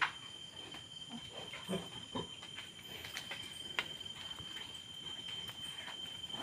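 Quiet farrowing pen with a sow and newborn piglets: faint scattered knocks, clicks and shuffling, a couple of soft low sounds about two seconds in, over a steady thin high tone.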